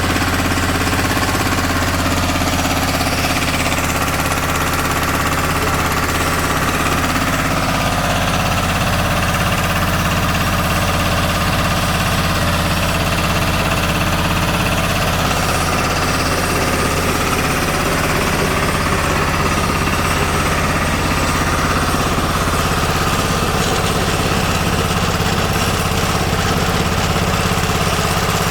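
Vertical pellet mill running, a loud, steady mechanical drone with a dense even rattle from its drive and die-and-roller press.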